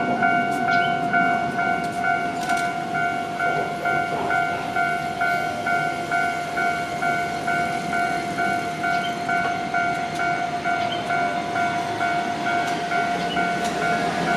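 Japanese railway level-crossing warning bell ringing in an even, repeating pattern of about two strikes a second over a steady tone, sounding as a train approaches.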